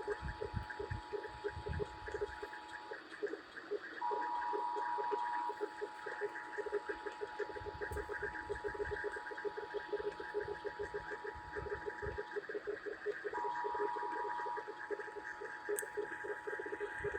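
Emergency Alert System attention signal: two steady tones sounding together just under 1 kHz. It drops out briefly twice and comes back louder each time, over a fast, even, rhythmic buzz.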